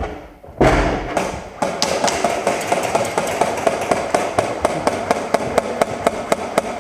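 Airsoft gun firing a rapid, even string of shots, about four or five sharp cracks a second, after a single loud knock near the start.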